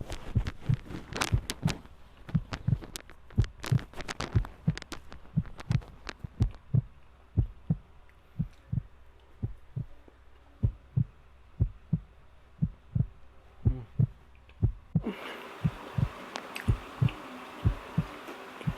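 Close-miked chewing of doughnuts: soft regular thuds about two a second with sticky mouth clicks. A steady hiss comes in near the end.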